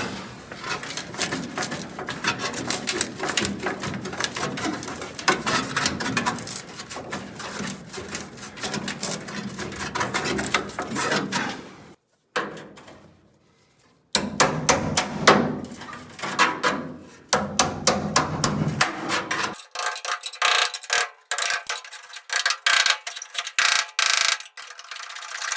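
Hand tools knocking and clinking against rusted steel on a 1965 VW Beetle's body, a dense, uneven run of metal strikes while working a rusted-out part free.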